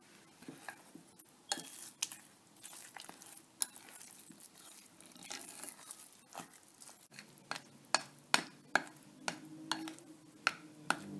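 Metal spoon stirring thick semolina-and-yogurt batter in a ceramic dish: wet scraping with frequent sharp clinks of the spoon against the dish, the clinks coming faster in the second half.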